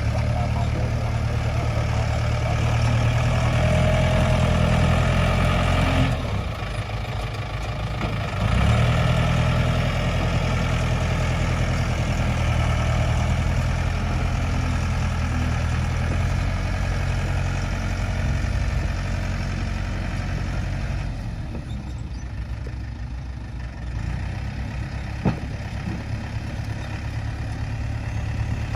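Tractor engine running steadily while working, dropping back about six seconds in and picking up again a couple of seconds later, and easing off again for a few seconds before a single sharp knock near the end.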